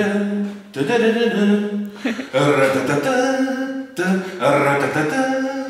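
A voice singing wordless long held notes in short phrases.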